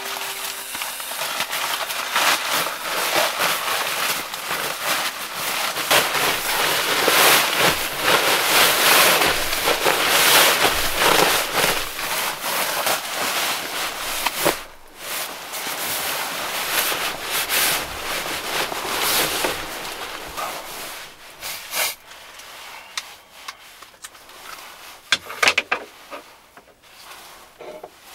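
Sleeping bag fabric rustling and crinkling as the bag is pulled from its stuff sack and spread out. It is loudest for the first half, then gives way to lighter, scattered crinkles and handling clicks.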